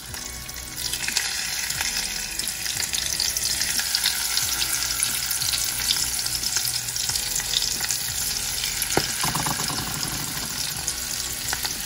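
Breaded small whole fish frying in shallow hot oil in a nonstick pan: a dense, steady crackling sizzle that grows louder about a second in as more floured fish are laid into the oil.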